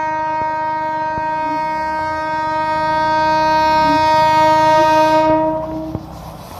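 Indian Railways locomotive horn sounding one long, steady blast that cuts off about six seconds in, followed by the rising rumble of the approaching train.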